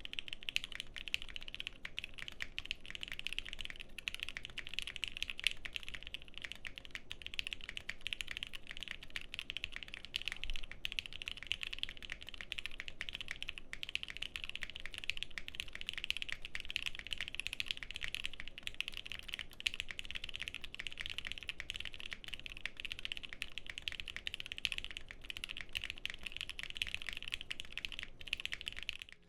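Continuous fast typing on a custom mechanical keyboard with lubed and filmed Gateron Black Ink linear switches, a POM plate and GMK keycaps, a steady stream of muted clacks.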